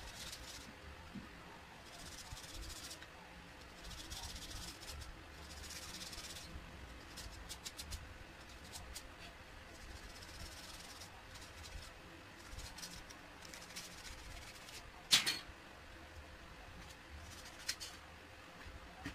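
Sandpaper rubbing by hand on a small painted blade in short spurts of about a second, followed by scattered light clicks and taps, with one sharper click about fifteen seconds in. A faint steady hum sits underneath.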